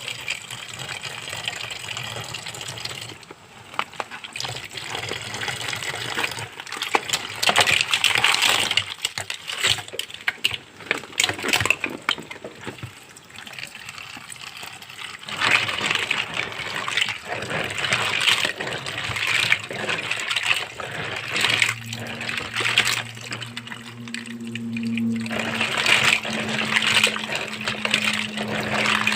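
Water running and splashing, with scattered clinks and knocks. A low steady hum comes in about three quarters of the way through.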